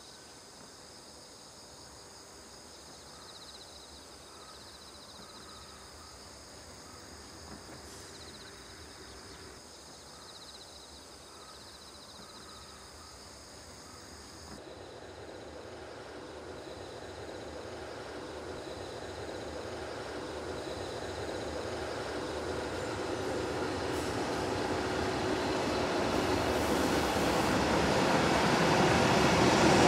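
A JR Freight EH500 electric locomotive hauling empty Schiki 850 heavy-load wagons, approaching. It is faint at first, then its running noise grows steadily louder from about halfway through as it nears.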